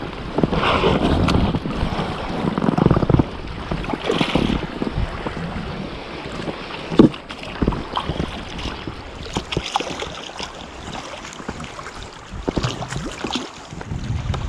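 Sea water sloshing and splashing in uneven surges, with wind buffeting the microphone and a few sharp knocks.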